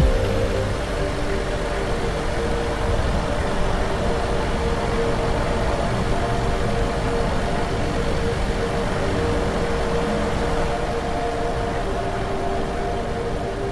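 Mercedes-Benz Tourismo coach driving at speed: a steady mix of tyre, wind and engine noise.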